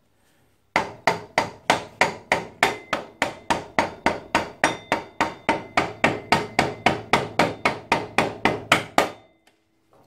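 Copper hammer striking metal in a fast, even run of blows, about four a second, starting under a second in and stopping about nine seconds in, while the rear wheel of a Yamaha TT250R is being refitted.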